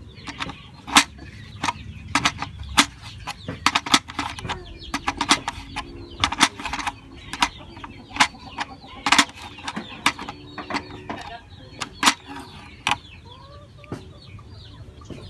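Sharp metal clicks and clinks, irregular, about one or two a second, from a socket wrench tightening a 6 mm bolt and nut on a plastic motorcycle fairing panel. A chicken clucks faintly in the background.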